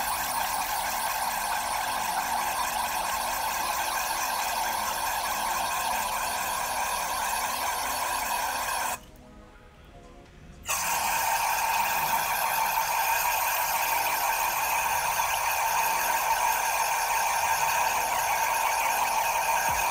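Aerosol brake cleaner spraying in long, continuous bursts through a bent straw into a crankshaft's dead-ended oil galleys, a steady hiss with a faint whistling edge. The spray stops briefly about halfway through, then runs on.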